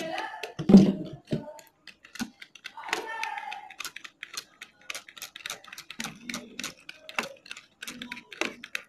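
Irregular light clicks and knocks from hands cleaning and handling a kerosene-wet motorcycle alloy wheel hub, with a heavier thump about a second in.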